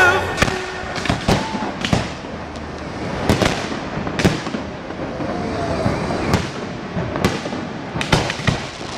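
Aerial fireworks going off: a dozen or so sharp bangs and pops at irregular intervals, several close together near the end.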